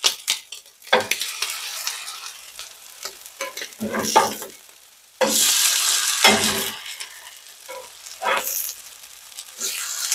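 Crab cakes sizzling in browned butter in a cast-iron skillet, with a metal spatula knocking and scraping on the pan as the cakes are turned over. The sizzle jumps louder about five seconds in as a cake goes back down onto the hot pan.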